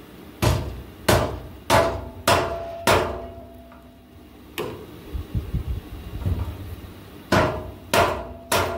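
Hammer blows on a steel suspension bracket, each strike ringing briefly: five blows in quick succession, a single blow a couple of seconds later, then three more near the end. The blows knock the 4-link mounting bracket over to bring it vertical.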